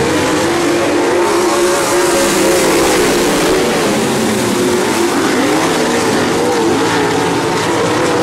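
A pack of winged dirt-track sprint cars racing, several engines running at once, loud and steady, their pitches wavering up and down against each other.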